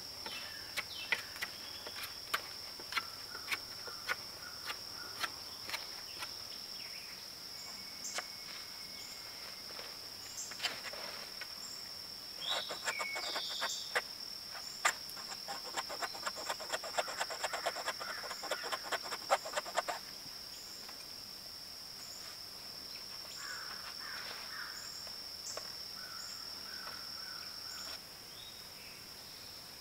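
A steady high insect drone from crickets runs under the work and stops near the end. Over it comes hand work on a green wood stick, fitting a cast aluminum gig head: scattered sharp clicks at first, then a run of rapid scraping strokes from about halfway to two-thirds of the way through.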